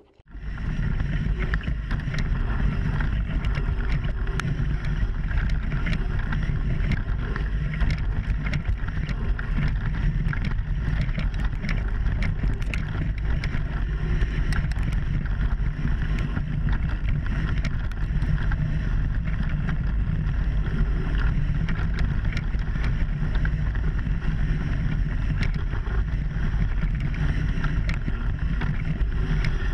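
Mountain bike ridden over a dirt trail, heard through a bike-mounted action camera: a steady low wind rumble on the microphone with tyre noise and frequent small clicks and rattles from the bike over bumps.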